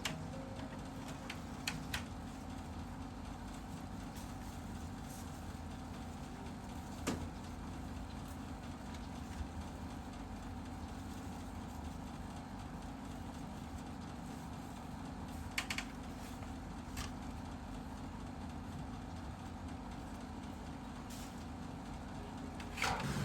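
Steady low background rumble with a few light clicks scattered through it.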